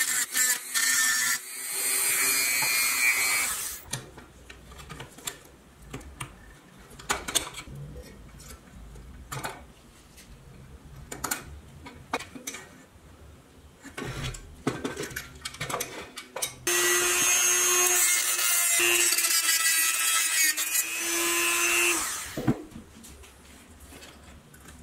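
Handheld rotary tool running at high speed, grinding against the steel wheel-axle ends of a pressed-steel toy truck to free the wheels. It runs in two stretches, one at the start lasting about four seconds and one of about five seconds starting after the middle. Between them come quieter clicks and knocks of metal parts being handled.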